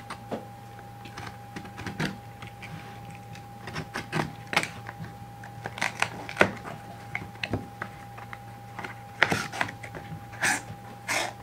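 Hands opening a taped cardboard box: scattered clicks, scrapes and rustles of cardboard and packing tape, with a few longer rasps near the end as the seal comes loose and a flap is pulled open. A faint steady tone runs underneath.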